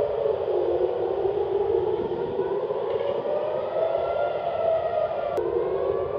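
Air raid siren wailing, its pitch sliding slowly down and then back up, with a sudden break about five seconds in where it drops low again and starts rising. It is sounding an alert for incoming rocket fire.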